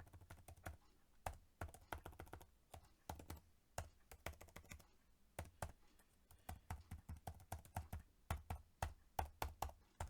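Typing on a computer keyboard: quick, irregular keystrokes in runs with short pauses, as a message is typed into a video-call chat box.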